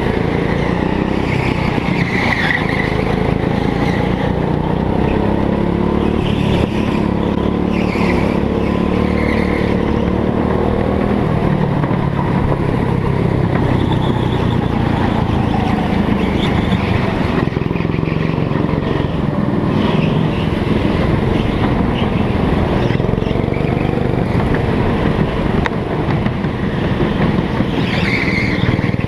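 Go-kart engine heard from on board the kart, revving up and down as it is driven hard around the track, with the tyres squealing briefly several times through the corners.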